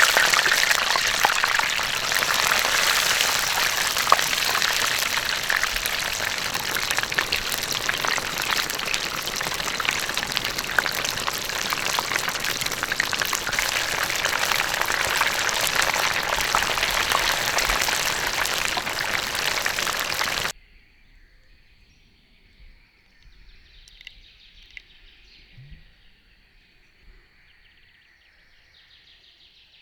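Loud, steady sizzling and hissing of food cooking over hot embers, full of fine crackles. It cuts off abruptly about two-thirds of the way through, leaving a quiet outdoor background with faint high chirping.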